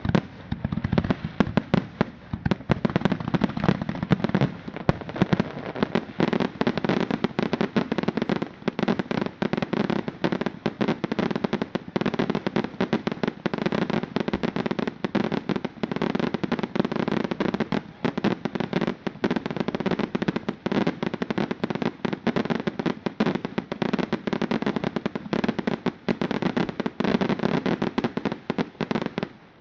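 Fireworks display: a dense, rapid barrage of bangs and crackling reports, many a second, running without a break.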